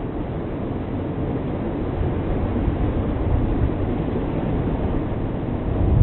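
Tractor engine running steadily under load as it pulls a disc plough through waterlogged mud, with the mud and water churning around the wheels and discs.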